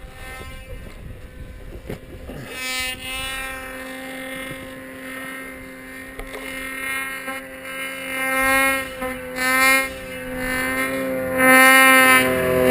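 Snowmobile engine running, its note coming in about two seconds in and held fairly steady, then revved up in several swells that grow louder near the end.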